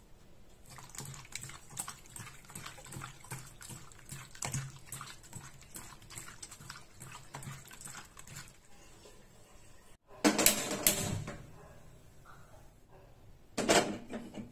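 A hand squishing and turning raw chicken gizzards with turmeric and salt in a steel bowl: a run of small, soft, wet squelches. Near the end come two louder bursts, the first about a second long and the second shorter, as a wire grill is handled over a gas burner.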